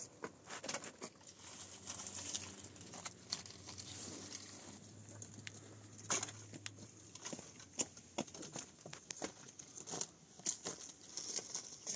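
Dry firewood being handled: sticks and twigs rustling, cracking and clattering as branches are pulled from a woodpile, with footsteps crunching over ground littered with dry twigs and leaves. The clicks and crackles come irregularly throughout.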